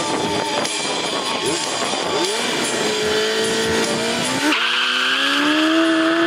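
Car engine revving hard as it accelerates. Its pitch climbs, breaks sharply about four and a half seconds in, and then climbs again.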